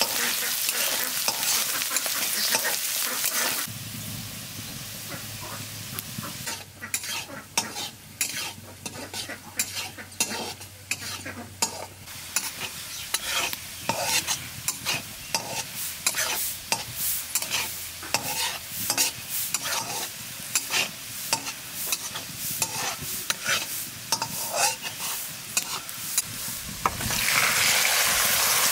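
Chopped onion, garlic and dried red chilli sizzling in hot oil in an aluminium kadai, with a steel spatula scraping and clicking against the pan as it stirs, many quick strokes. Near the end the sizzling turns loud again as poached eggs and their water are slid into the hot oil.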